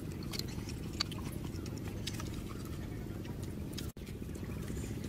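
Scattered light clicks of snail shells being handled and picked out with small sticks, over a steady low rumble. The sound cuts out for a moment just before four seconds in.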